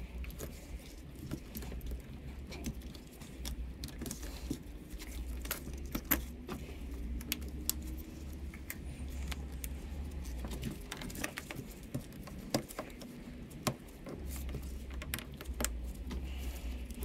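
Gloved hands working hoses and wiring connectors in an engine bay: scattered sharp clicks and light rattles of plastic and rubber parts, over an on-off low hum.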